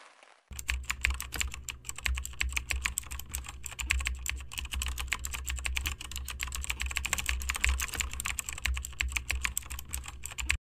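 Computer keyboard typing sound effect: rapid, uneven keystroke clicks over a low steady hum, starting about half a second in and stopping abruptly near the end.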